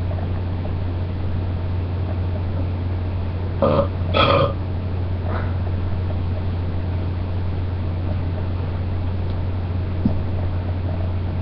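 A person burping twice in quick succession about four seconds in, with a fainter third burp just after, over a steady low hum.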